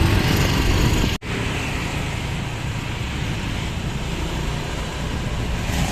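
Steady road traffic noise from vehicles running by. The sound cuts out for an instant about a second in.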